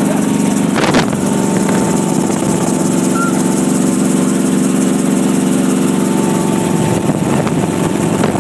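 Helicopter engine and rotor noise heard from inside the cabin in flight, loud and steady, with one brief knock about a second in.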